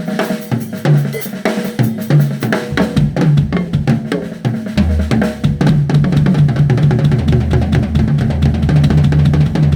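Drum kit played with fast, dense strokes. From about five seconds in a deep low boom sounds under the strokes as the playing gets busier.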